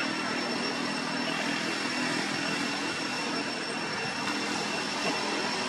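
A steady, even hiss of outdoor background noise, with a few thin, unchanging high tones running through it.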